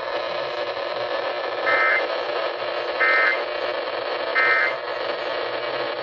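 AM radio tuned to 820 playing the Emergency Alert System end-of-message code: three short, identical bursts of high-pitched data tone about a second and a half apart, over a steady hiss of radio static. The bursts mark the end of the required monthly test.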